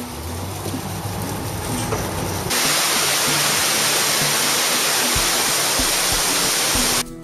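Loud, steady roar of a tall waterfall, Kegon Falls, plunging into its gorge, starting suddenly about two and a half seconds in and cutting off near the end. Before it there is a softer hiss with a low hum, and faint background music runs underneath throughout.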